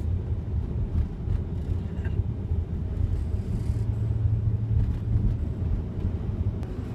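Car driving, heard from inside the cabin: a steady low drone of engine and road noise.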